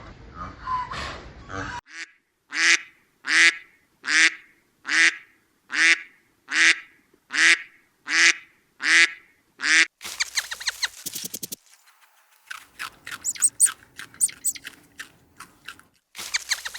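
A duck quacking about ten times in a steady, evenly spaced series, a little under one quack a second. About ten seconds in, it gives way to a rapid run of sharp, high clicking and chirping calls.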